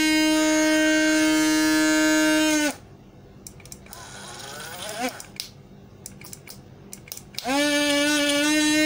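Small electric motor of a rechargeable portable juicer blender running empty with a steady high-pitched whine. It stops about three seconds in and starts again near the end, with a few light clicks in between. The machine is working again, its faulty on/off switch resoldered.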